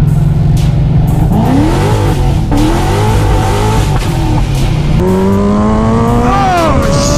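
A Corvette's engine heard from inside the cabin as the car accelerates hard, its revs climbing and dropping through gear changes. About five seconds in it cuts to a Kawasaki sport motorcycle's engine pulling up through the revs in a rising whine, shifting up near the end.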